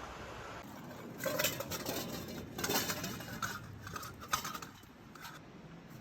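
Dishes and metal utensils clinking and clattering as they are handled, in an irregular run of knocks for about four seconds.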